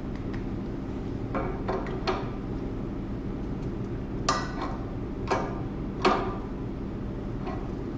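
A wrench and metal pipe fittings clicking and clinking as a check valve is threaded and tightened onto the air compressor's outlet: a handful of short, sharp metallic clicks, the last few loudest, over a steady low hum.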